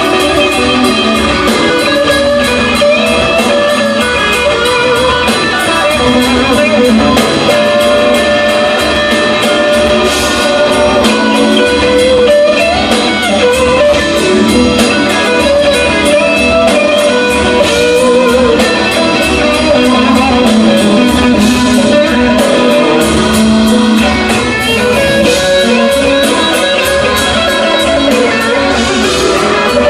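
Live rock band playing, with electric guitars to the fore over drums and keyboards, recorded loud from the audience.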